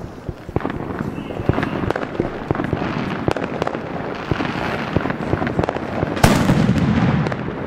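Many firecrackers popping and crackling at a distance over a steady rumble of fireworks, with one louder bang about six seconds in.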